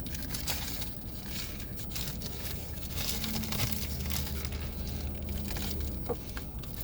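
Food packaging rustling and crinkling as it is handled, in irregular crackles, with a faint low hum in the middle.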